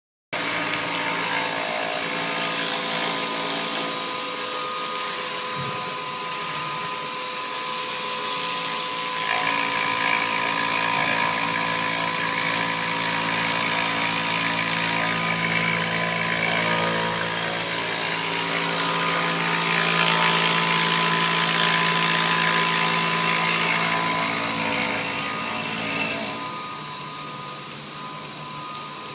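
Maya-600A CNC bridge polisher's spindle running, its tool grinding a wet stone slab: a loud, steady machine whine with several held tones over grinding noise. It gets louder about a third of the way in and drops back near the end.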